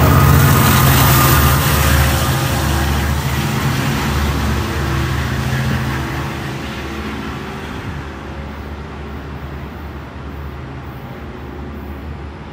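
Long Island Rail Road diesel locomotive and its bilevel coaches going away: the diesel engine's steady low drone over rail noise, fading as the train recedes.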